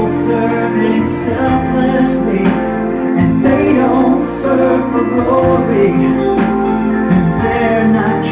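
A song with a solo singer over instrumental backing, played from a music video through a screen's speakers. The sung lines are about people serving selflessly, not for glory and not keeping score.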